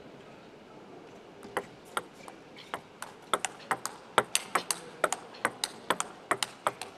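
A table tennis rally: the plastic ball clicking sharply off the rubber bats and the table. It starts with the serve about a second and a half in, then speeds up to a quick back-and-forth of about four clicks a second before stopping near the end.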